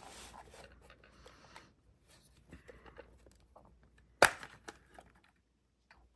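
Light handling noises: short rustling and scraping, a few soft ticks, and one sharp click a little past four seconds in.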